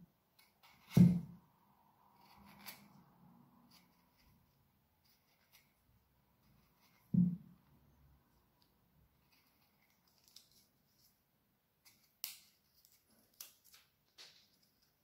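Small carving gouge taking short crisp cuts and scrapes into the wood of a bark-covered branch, with a cluster of cuts near the end. Two dull knocks, the loudest sounds, come about a second in and around seven seconds.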